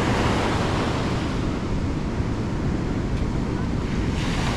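Ocean surf washing onto the beach, with wind rumbling on the microphone; the surf's hiss grows brighter near the end.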